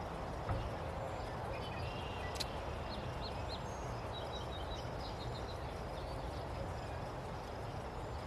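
Outdoor farm ambience: a steady low rumble of wind or background noise, with a few faint, short, high bird chirps between about three and five seconds in.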